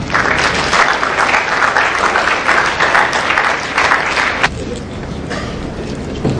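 Audience applauding, fading after about four and a half seconds.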